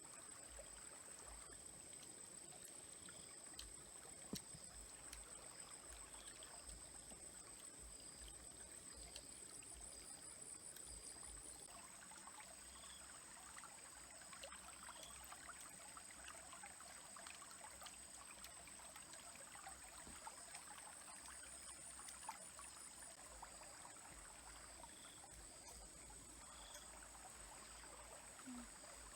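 Small stream trickling faintly, with a steady high-pitched whine over it and a single sharp click about four seconds in.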